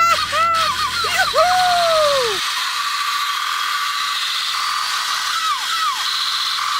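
A high voice calls out 'Yahoo!' with swooping pitch. About two and a half seconds in, a steady mechanical rattling starts and keeps going: a battery-powered toy gun's firing mechanism running.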